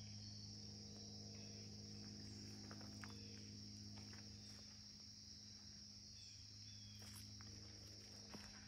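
Faint insect chorus in woodland, a continuous high buzz, with a few soft footsteps on the trail.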